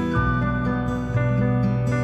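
Instrumental background music of sustained notes, changing chord about a fifth of a second in.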